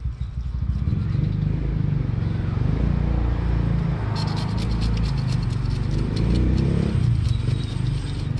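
Knife scraping and cutting a freshly caught tilapia on a concrete floor: quick, scratchy strokes, thickest from about four seconds in, over a steady low rumble.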